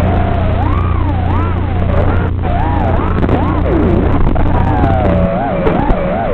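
FPV racing quadcopter's brushless motors whining, the pitch rising and falling again and again as the throttle changes through turns, over a steady low electrical hum.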